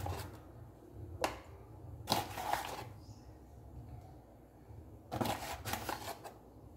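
Metal spoon scooping wheat flour out of a paper flour bag and tipping it into a small measuring cup: paper rustling, spoon scraping and light taps, in a few short bursts.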